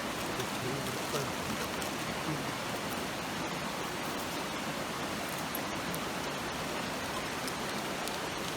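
A river in a gorge rushing steadily, with a few faint ticks over it.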